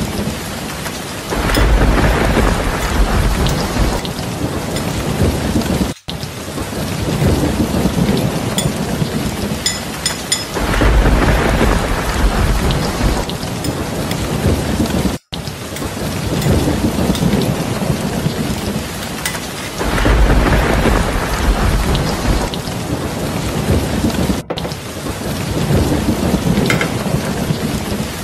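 Steady heavy rain with a low thunder rumble swelling about every nine seconds, cutting out for an instant at the same spacing, like a looping rain-and-thunder sound track.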